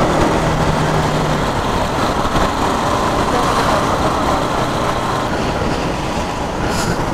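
Wind rushing over the microphone of a moving motorcycle, with the bike's engine running steadily underneath and a brief higher hiss near the end.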